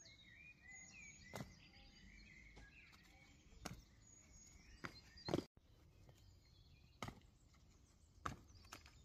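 Sneakers landing and scuffing on concrete steps: several separate sharp footfalls, irregularly spaced, over a faint outdoor background.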